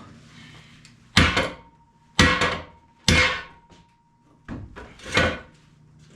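Hammer blows on metal, four hard strikes and one lighter one about a second apart, with a faint ringing tone after the first ones, typical of tapping a U-joint and its snap ring into a drive shaft yoke.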